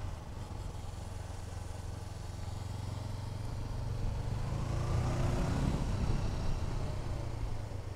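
Honda CBR500R's parallel-twin engine running steadily as the bike rides along. It swells louder for a few seconds past the middle, then eases again.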